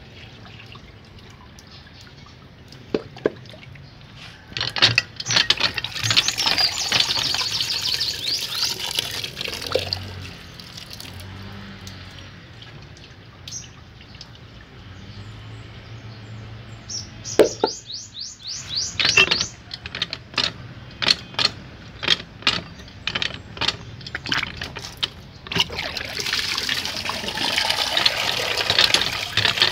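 Water sloshing and splashing in a metal basin as fish pieces are washed by hand, with a run of sharp clicks and knocks against the basin in the middle, then water poured into the basin near the end.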